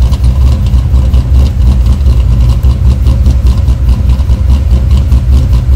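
LS1 V8 idling, heard close up at the exhaust, with a lumpy, uneven chop. The ECU's zero-demand ignition angle has just been cut to fake a bigger cam (ghost cam), making the idle speed jump around.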